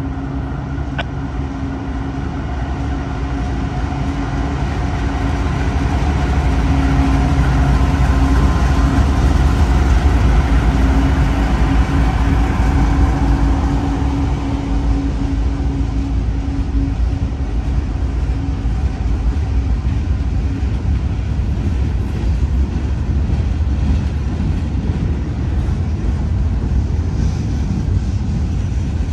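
Diesel-electric freight locomotives (GE CW44AC) running past. The engine drone and a steady humming tone build to their loudest about ten seconds in, then ease into the steady rumble of the train rolling on.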